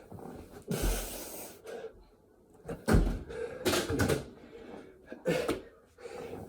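A person doing burpees with push-ups: thuds of hands and feet landing on the floor, with hard, breathy exhales between them. There are heavy thumps about a second in and about three seconds in.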